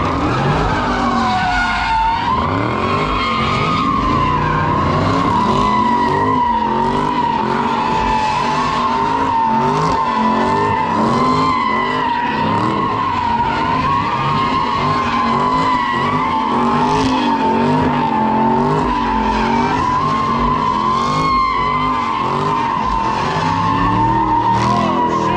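A car's rear tyres spinning and sliding, giving one long continuous tyre squeal, with the engine revving up and down in a repeating pattern underneath.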